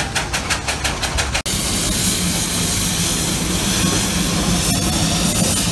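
Steam traction engines hauling a 40-tonne transformer: rapid exhaust beats, about six a second, then, after an abrupt cut about a second and a half in, a steady hiss over a low hum.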